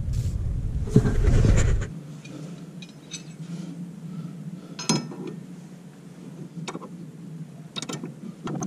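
Scattered metallic clinks and taps of tools on metal, with one sharp click about five seconds in and a few more near the end. It opens with about two seconds of loud low noise that stops abruptly.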